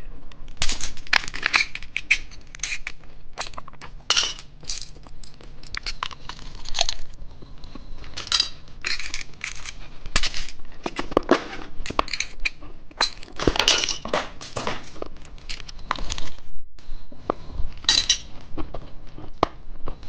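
Plastic candy packaging being crinkled and torn open by hand: a run of irregular crackles and rustles.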